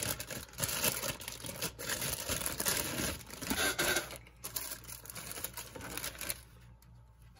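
Thin plastic parts bag crinkling and rustling as model-kit sprues are handled and pulled out of it, the crackling thinning out and stopping near the end.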